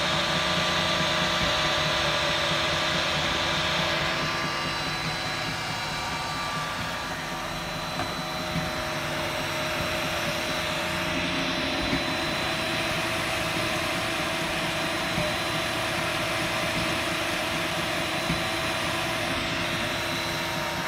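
Tronxy X5SA 3D printer running a print: its cooling fans and stepper motors make a steady whir with several held tones. A brighter hiss fades about four seconds in, and a few light ticks come later.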